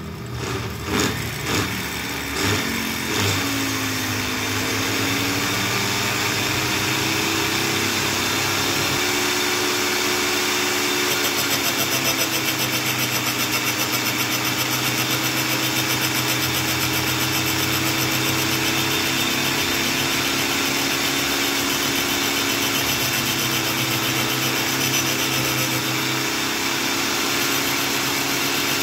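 Homemade mini lathe driven by a juicer motor on a speed controller, with a grinder mounted on it, running. A few knocks and a shifting motor pitch come in the first few seconds, then it settles into an even hum.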